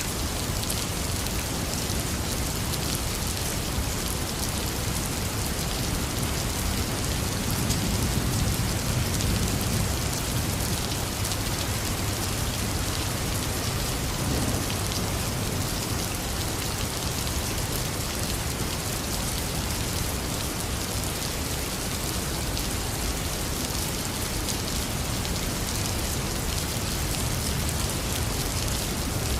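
Heavy rain falling steadily, a dense hiss of drops, with a low rumble of thunder swelling about eight seconds in.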